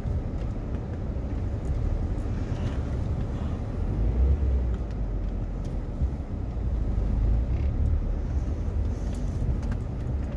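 Car driving slowly, heard from inside the cabin: a steady low rumble of engine and tyres that swells a little about four seconds in and again around seven to eight seconds.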